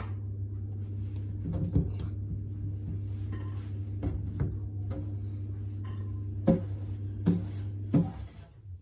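Scattered light knocks and taps as cherry tomatoes and fingers hit a stainless steel sink while the tomatoes are picked up, over a steady low hum that cuts off near the end.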